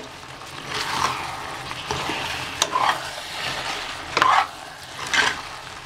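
A metal ladle stirring and scraping soaked rice through chicken masala in an aluminium pressure cooker, with the masala sizzling over the heat. The ladle gives louder scrapes every second or so, and one sharp clink against the pot.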